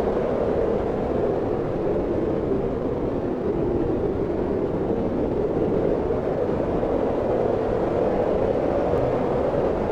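Wind blowing steadily: a dense rushing noise with slight slow swells and no sharp gusts.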